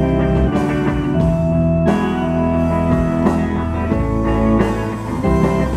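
Live rock band playing an instrumental passage without vocals: electric guitar, keyboard and drum kit.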